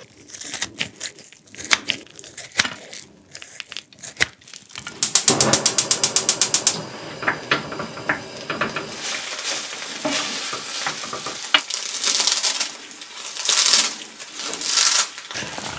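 Kitchen scissors snipping smoked pork belly in a run of irregular sharp clicks, then a short burst of rapid, evenly spaced clicking about five seconds in. After that, fried rice being stir-fried in a griddle pan, a spatula scraping and pressing with scattered clicks, and dried laver crackling as it is crumbled over the rice near the end.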